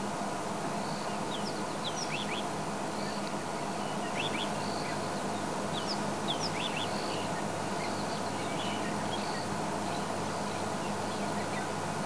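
Faint chirps of wild birds: a few short, high notes about one to three seconds in and again around six to seven seconds, over a steady low hum and hiss.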